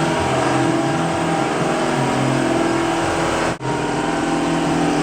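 Steady mechanical hum of a running motor, with several even tones held throughout and a brief dropout about three and a half seconds in.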